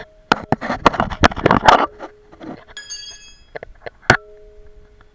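2017 Mazda 3 rear brake caliper clanking and rattling against the new pads and bracket as it is handled and set back on, with a burst of rattling in the first two seconds. About four seconds in a hard metal knock leaves a short, steady ring.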